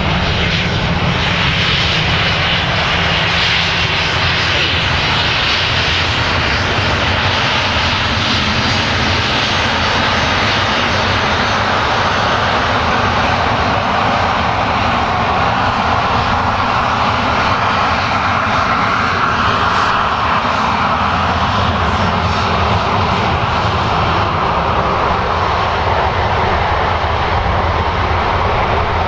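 Boeing 737-500's twin CFM56 turbofan engines running steadily as the airliner rolls and taxis, a loud jet rumble with a high whine that sinks lower in pitch about halfway through as the aircraft passes and moves away.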